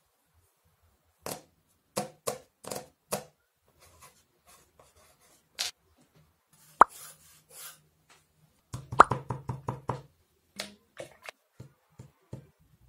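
Small objects handled and set down on a wooden workbench and MDF board: scattered light knocks and clicks, with one sharp click near the middle and a quick run of about eight ticks just under nine seconds in.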